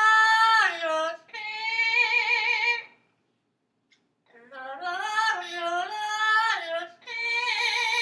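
Parrot singing an operatic phrase in a soprano-like voice, twice. Each time it slides between notes and then holds a long note with a strong, even vibrato. The first phrase ends about three seconds in, and after a short silence the same pattern starts again about four seconds in.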